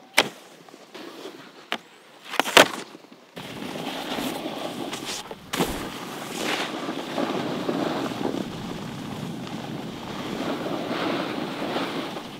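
A few sharp knocks in the first three seconds. After that, a steady rush of snowboards sliding and carving over snow, with wind buffeting the microphone.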